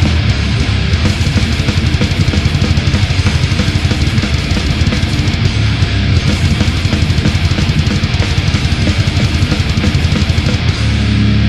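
Death metal music: heavily distorted electric guitars over fast, dense drumming. Near the end the low riff changes to longer held notes.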